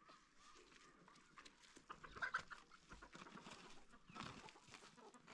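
Chickens clucking faintly, with scattered small clicks and rustles.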